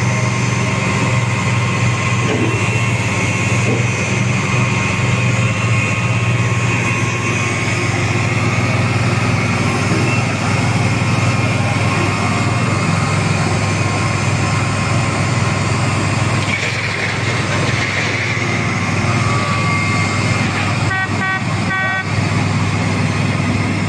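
Track-laying machine's engine running with a steady low drone as its sleeper gantry crane travels along the flatcars. Near the end, a quick run of short warning-horn beeps.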